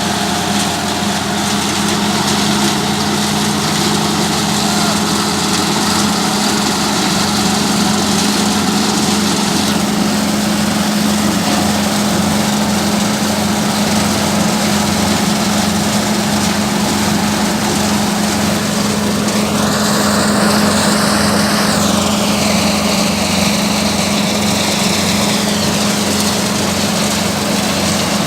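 An engine running steadily with a fast, even pulse. A higher whine rises sharply about two-thirds of the way through, then slides back down.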